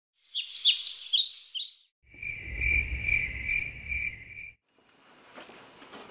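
Birds chirping in quick high twitters for about two seconds, then crickets chirping in a steady pulsing trill over a low rumble, cutting off at about four and a half seconds. The pair sets the passage from day to night.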